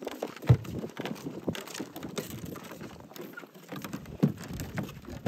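Footsteps on weathered wooden dock planks: irregular taps and knocks, a louder one about half a second in.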